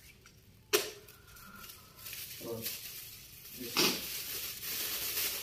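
A person belching: one short, sharp burp about a second in and another about four seconds in, with a hiss building between them.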